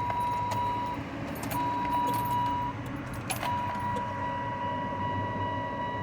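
A steady high electronic warning tone, likely the car's key or door-open buzzer, breaking off twice and then sounding on, with a few sharp clicks and keys jingling.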